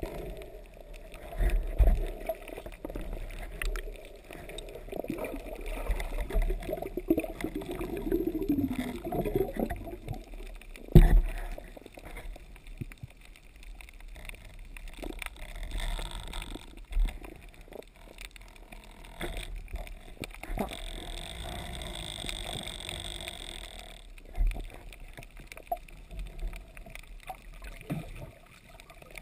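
Muffled underwater sound heard through a camera's waterproof housing: uneven low thumps and knocks from a diver swimming, with one sharp knock about eleven seconds in. A steady high whine runs for a few seconds about two-thirds of the way through.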